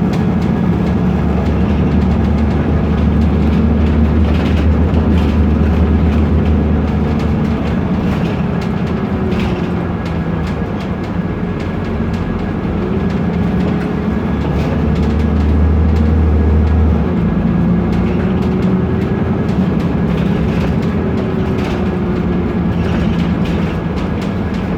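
BMC Procity city bus under way, heard from inside: its Cummins ISB turbo diesel runs with the pitch rising and falling as it pulls through the automatic's gears, over steady road rumble. Loose interior parts and window glass rattle throughout, and a deep rumble drops away about two-thirds of the way in.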